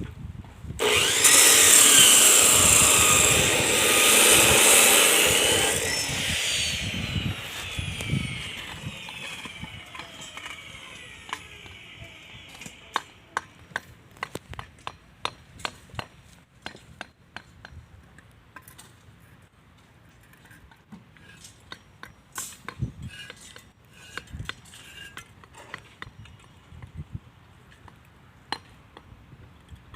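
A handheld power cutting tool, a saw or angle grinder, runs loudly for about five seconds, then its whine falls away as the blade spins down over several seconds. After that come scattered light knocks and clicks of hand work.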